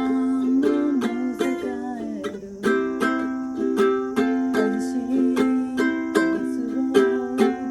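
Ukulele strummed in chords, a steady strumming rhythm with the chords changing every second or so.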